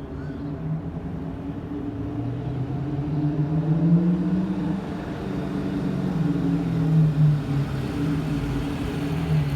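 Car engine fitted with a stage 2 camshaft, running with an uneven, lumpy note; its pitch and loudness rise briefly around four seconds and again near seven, and grow slowly louder overall.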